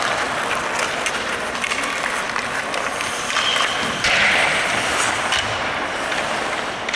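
Ice hockey practice: skate blades scraping and carving the ice, with sharp clacks of sticks and pucks, and a louder scraping hiss about four seconds in.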